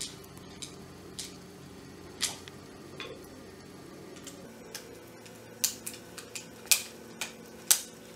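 Sharp, irregular clicks and taps of a screwdriver driving a screw into the plastic housing of a hand blender, louder and closer together in the second half.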